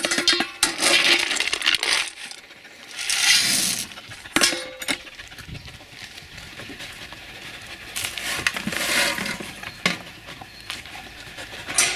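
Stainless steel bowl clinking and scraping against a plastic bucket as it is set in, followed by further irregular metallic clatter and scraping, with a sharp knock about four seconds in.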